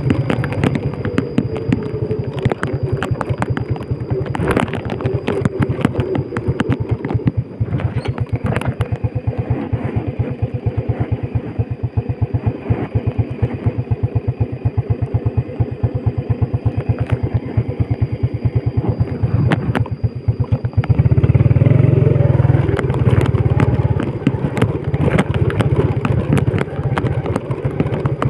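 Yamaha Vega underbone motorcycle's four-stroke single-cylinder engine running with evenly paced exhaust beats and scattered clattering knocks in the first few seconds. About 21 seconds in it gets clearly louder and fuller as the bike pulls away along the rough dirt track.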